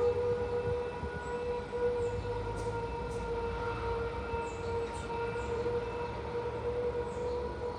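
A long, steady, trumpet-like drone with several overtones, holding one pitch throughout over a low rumble: the unexplained 'sky trumpet' sound heard from the sky.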